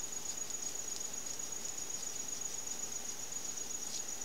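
Cricket trilling steadily at a high pitch, unbroken, over faint background hiss.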